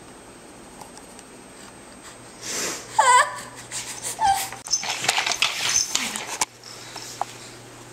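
Baby crying: a short wail about three seconds in, then broken fussing cries and whimpers that stop shortly before the end.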